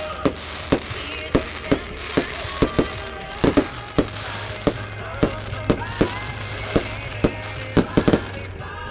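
Fireworks going off in quick succession, about twenty sharp bangs at roughly two a second, over background music.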